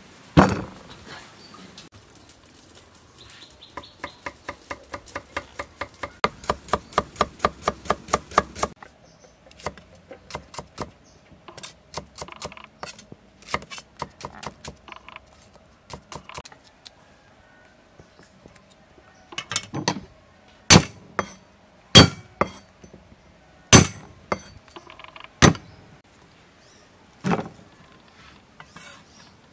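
Kitchen knife cutting shallots and ginger on a wooden chopping board. It begins with a fast, even run of strokes, about five a second for some five seconds. Scattered cuts follow, and then, in the last third, several louder single chops a second or two apart.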